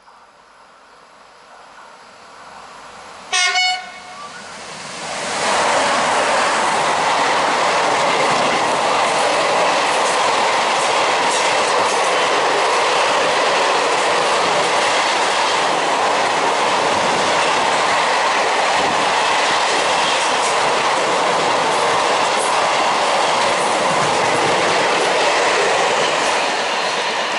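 Freight train led by Takargo 6001, a Vossloh Euro 4000 diesel-electric locomotive, approaching and passing at speed. One short horn blast about three seconds in, then the loud, steady rush and wheel clatter of the locomotive and a long string of container wagons going by for about twenty seconds, easing slightly near the end as the last wagon passes.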